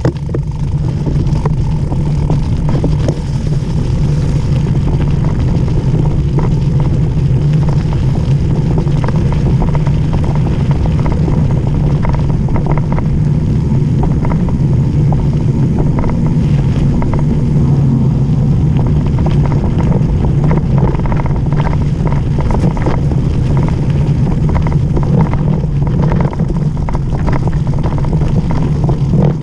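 Mountain bike descending fast on loose gravel and slush: a steady loud rush of wind on the camera microphone and tyre rumble, with frequent rattles and clicks from the bike jolting over stones.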